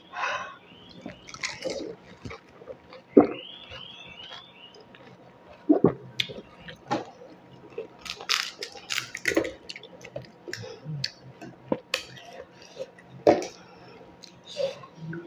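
Close-miked eating of pani puri: crisp wheat-flour puris cracking and crunching as they are bitten, with wet chewing and spiced water dripping and sloshing. The crunches come as sharp, irregular cracks, several of them loud.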